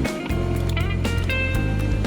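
Background music: sustained notes, some sliding up in pitch, over a steady bass line. The bass drops out for a moment just after the start.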